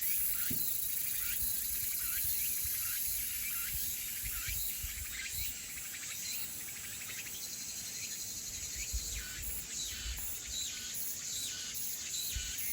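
Chorus of crickets and cicadas: a dense, steady high-pitched shrilling, with short falling calls repeating about twice a second through it.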